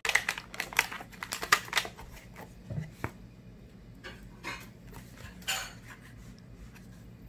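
Rubber bands being pulled off a paperboard takeout box and the box being handled and opened: a quick run of small snaps, clicks and rustles over the first two seconds, then a few scattered taps and paper rustles.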